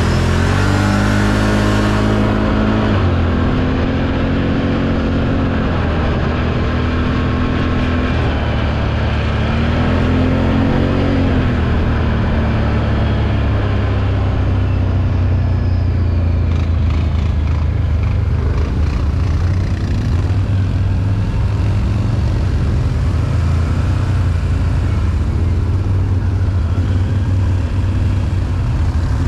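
Can-Am 1000 ATV's V-twin engine running as it is ridden, its pitch rising and falling with the throttle several times over the first dozen seconds, then holding steadier.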